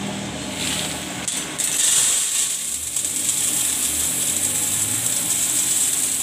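Roasted coffee beans pouring from a plastic tub into a coffee grinder's hopper: a continuous hissing rattle of beans that starts about a second and a half in, after a couple of brief rattles.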